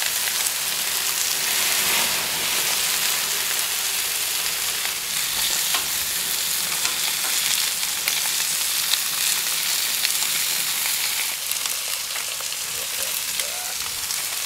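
Sausages, steaks, potato slices and chicken skewers sizzling over the flames of a gas barbecue grill: a steady hiss of fat frying, with a few light clicks.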